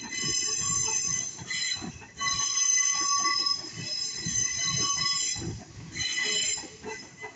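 Electric commuter train rolling slowly around a curve, its wheels squealing against the rails in long, high-pitched squeals that break off and start again, over the rumble of the wheels.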